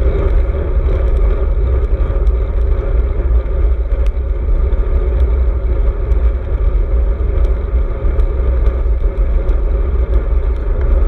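Wind and road noise on a handlebar-mounted GoPro microphone while riding a road bike: a steady heavy low rumble with tyre hiss and a few faint clicks.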